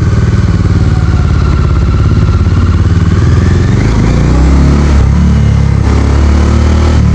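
Motorcycle engine running at low road speed, its pitch rising about four seconds in as it picks up speed, then settling into a deeper, heavier running note.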